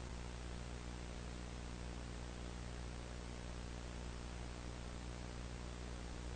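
Steady electrical mains hum with a stack of overtones under a constant even hiss, with no programme sound: dead air.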